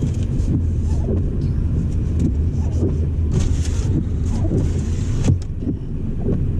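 Car driving, heard from inside the cabin: a steady low rumble of engine and road noise, with two brief hissing swishes about three and a half and five seconds in.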